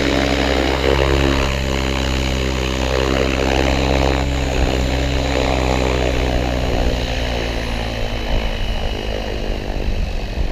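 Align T-Rex 700E electric RC helicopter's rotor and motor running with a steady hum and a stack of steady tones. About eight seconds in, the low hum drops away.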